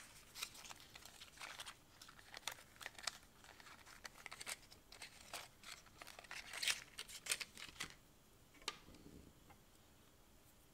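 Small cardboard box of Lamy ink cartridges handled and opened: faint, irregular crinkling and rustling of paperboard with light clicks, then one sharper click shortly before the end.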